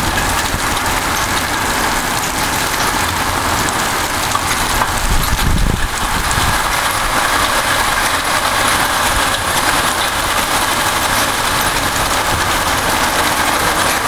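Heavy monsoon rain pouring steadily, with wind buffeting the microphone in a low rumble that swells about five seconds in.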